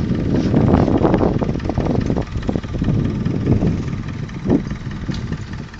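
Wind buffeting a phone's microphone: an uneven low rumble that rises and falls in gusts.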